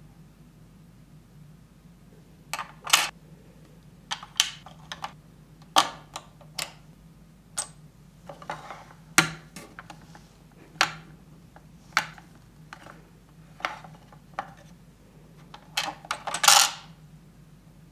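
Hard plastic parts of a MegaHouse Choco de Coin chocolate-coin making kit being handled: scattered sharp clicks and taps as pieces are set down and fitted, with a short scraping rattle near the end as a plastic disc is pulled out of a mould slot.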